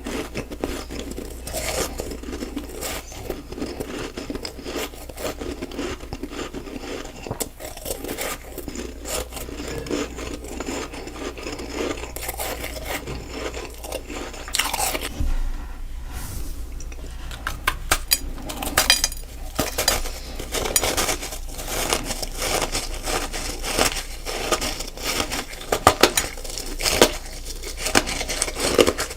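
Crunchy snowballs of packed freezer frost being bitten and chewed close to the microphone: a rapid crackling run of crunches that eases briefly about halfway, then comes back louder and sharper.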